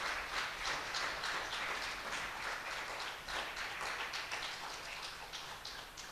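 Audience applauding, the claps thinning out and fading near the end.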